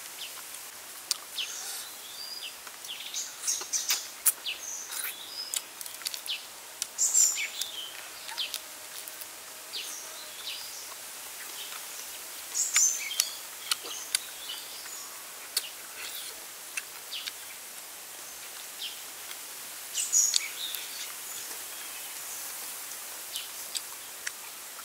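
Close-up eating sounds: chewing and pulling roasted Muscovy duck meat off the bone, with sharp clicks and mouth smacks in irregular clusters over a steady outdoor hiss.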